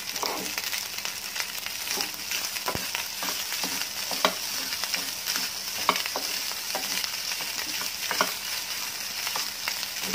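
Cooked rice frying in butter in a frying pan with a steady sizzle, stirred and scraped with a wooden spatula that gives short sharp knocks and scrapes against the pan every second or two.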